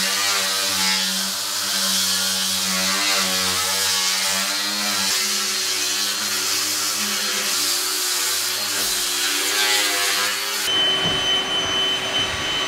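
Cordless power tools sanding white oak laminations, the motor's pitch wavering as it bears on the wood. First an angle grinder with a sanding disc, then near the end a random orbital sander with a steady high whine.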